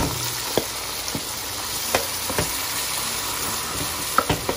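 Chicken mince sizzling as it fries in hot oil in an aluminium pot. A wooden spoon knocks and scrapes against the pot several times while stirring and breaking up the meat, with a quick cluster of knocks near the end.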